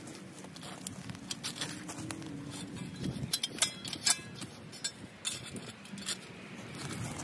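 Metal shovel blade pushed and levered into mulch-covered soil around a shrub's root ball: irregular scraping and crunching of dry leaves, roots and dirt, with a few sharper clicks about four seconds in.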